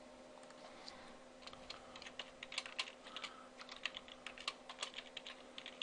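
Typing on a computer keyboard: quick, irregular keystrokes that start about a second and a half in, over a faint steady hum.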